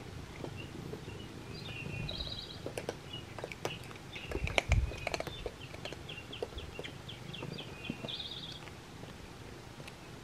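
Birds chirping, with a quick trill of short repeated notes a little over halfway through, over scattered light clicks and a soft low thump near the middle.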